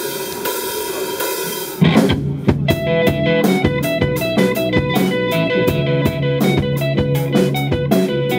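Live rock band of electric guitar, bass and drum kit playing an instrumental intro. A held, ringing opening gives way about two seconds in to the full band coming in together with a steady drum beat.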